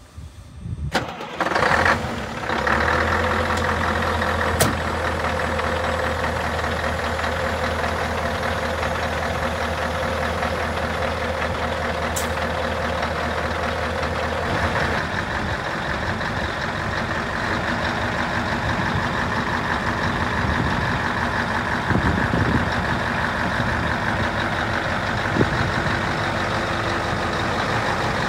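Scania R144 truck's 14-litre V8 diesel starting about a second or two in, then idling steadily. Its tone shifts about halfway through.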